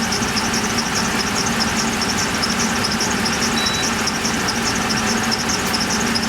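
2009 Ram 1500 pickup engine idling steadily as it warms up, run to burp trapped air out of a freshly refilled cooling system. A fast, regular high-pitched ticking runs over the idle.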